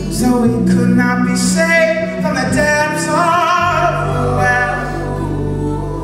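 Live male singing of a slow, wavering melody over acoustic guitar and sustained low keyboard chords.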